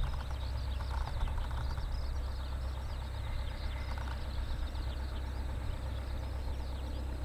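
Cessna 172P Skyhawk II's four-cylinder Lycoming O-320 engine and propeller running at low taxi power: a steady low drone. Many short high chirps sound over it.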